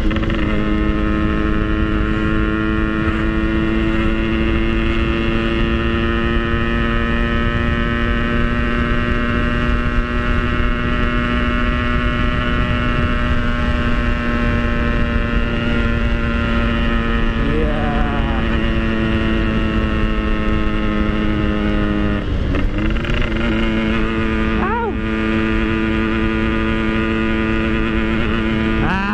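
Yamaha RX-King's single-cylinder two-stroke engine running at steady high revs under way, with wind rushing on the microphone. The revs dip briefly and climb back several times in the second half.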